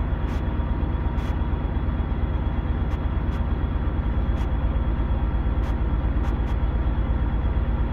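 Detroit Diesel 12.7-litre Series 60 diesel engine running steadily, heard from inside the truck cab during an injector diagnostic check.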